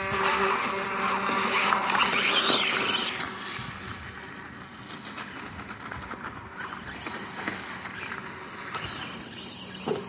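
Reely RC dirt bike's electric motor whining as the bike pulls away, its tyre spinning and throwing loose gravel for the first three seconds or so, then running on more quietly over the gravel lane with a steady crackle of stones.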